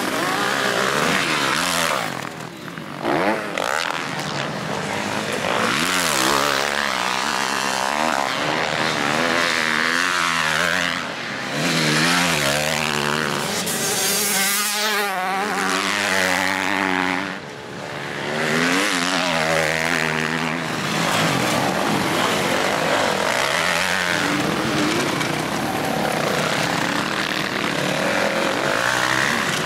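Motocross dirt bikes running hard on the track, their engines revving up and falling away again and again as riders work the throttle through corners and straights.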